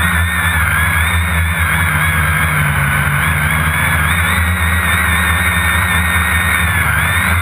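Quadcopter's electric motors and propellers heard from its onboard camera: a steady loud hum with a high whine that wavers up and down in pitch as the motor speeds shift.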